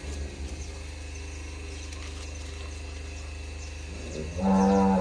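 A cow moos once near the end, a short, loud, steady call, over a steady low hum.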